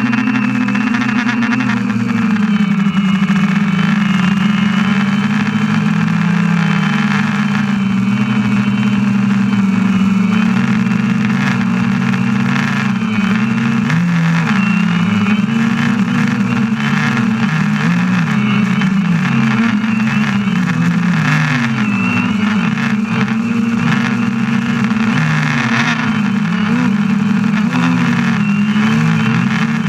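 DJI Phantom quadcopter's electric motors and propellers humming steadily in flight, as heard by the camera mounted on the drone itself. Several close pitches waver up and down as the motors change speed, more so in the second half.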